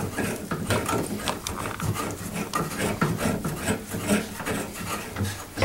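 Hand work on a bathroom exhaust fan housing: irregular clicking, rubbing and scraping of tools and metal or plastic parts as the replacement fan motor assembly is fitted and screwed in.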